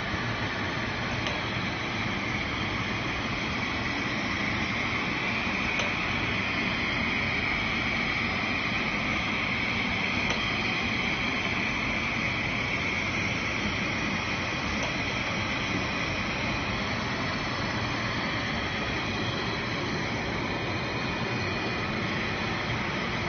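Automatic face-scrub jar filling and capping line running: a steady machine hum and hiss, with a faint click every four or five seconds.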